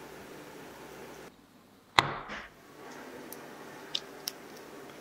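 Coconut milk pouring steadily into a bowl, then after a brief gap a single sharp clack about two seconds in, the loudest sound, followed by a couple of light clinks of a metal spoon against the bowl.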